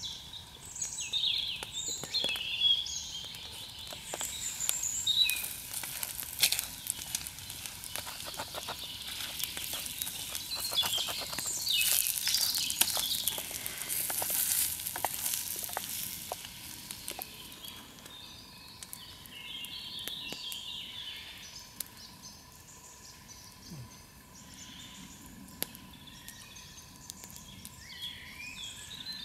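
Food sizzling in a frying pan at the edge of a wood campfire as it is stirred with a wooden spoon, loudest around the middle; the fire crackles with sharp pops, and birds sing throughout.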